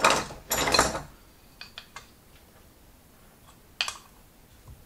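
Metal hand tools clattering on the bench as an adjustable spanner is picked out of the pile, then a few light clicks and one sharper metallic click near the end as the spanner goes onto the carburettor's brass main-jet plug.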